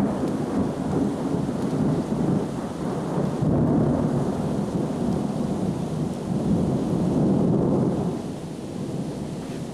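Thunder rumbling almost without a break over steady rain. The rumble swells a couple of times and then dies away near the end.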